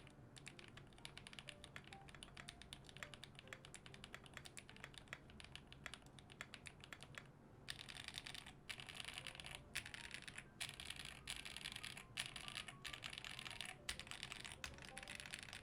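Typing on a QK65 mechanical keyboard with Holy Panda tactile switches: a fast, steady patter of key clicks, louder and in quick runs with short pauses from about halfway through. The owner finds the sound damped and a little muted by the case dampener.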